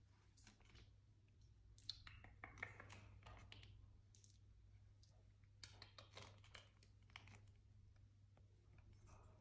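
Faint scattered clicks and scratches of a lovebird climbing on a fabric curtain and its curtain rail, over a low steady hum.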